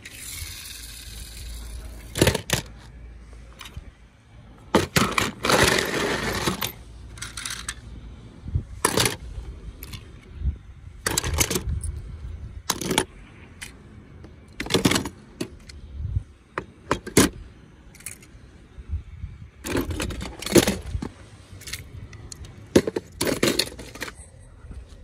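Small toy cars clicking and clattering as they are handled, knocking against each other and a hard surface. The sharp clacks come irregularly, every second or two, some in short clusters.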